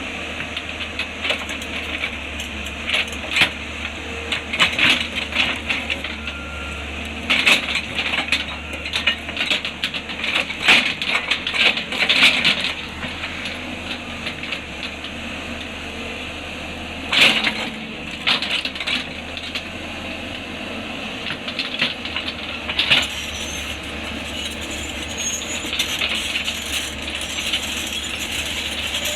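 Excavator working in hard rock: its engine runs steadily underneath while rock and steel clatter and clink in irregular clusters of sharp knocks, busiest in the first half and again briefly twice later on.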